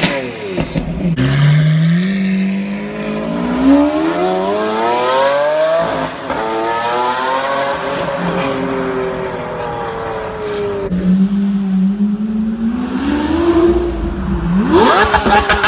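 Lamborghini Aventador LP700-4's V12 engine through an Armytrix valved exhaust, accelerating hard. Its pitch climbs in long pulls, breaking and dropping twice as it shifts up. A quick, steep rev comes near the end.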